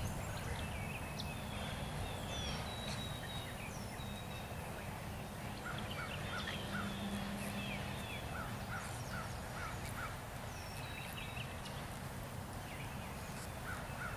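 Birds chirping and calling in short rising and falling notes, with runs of quick repeated notes, over a steady low outdoor background noise.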